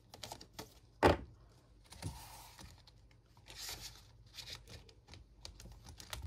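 Hands handling paper tracker cards and a cash binder's clear plastic pouch: a sharp knock about a second in, then rustling and crinkling of plastic and paper with scattered light clicks.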